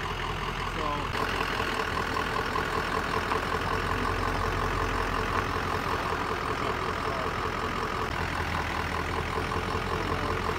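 Ford Super Duty pickup's engine idling steadily, with a fast, even ticking over its low hum that grows a little louder about a second in.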